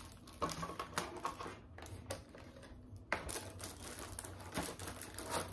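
Hands handling the plastic parts of a pet clipper kit in its case: irregular light clicks and knocks, with one sharper click about three seconds in.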